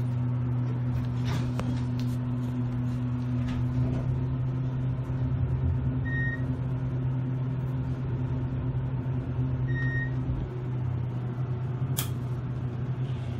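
Hydraulic elevator running as the car rises, with a steady low hum from the drive. Two short high beeps sound about four seconds apart, and a sharp click comes near the end.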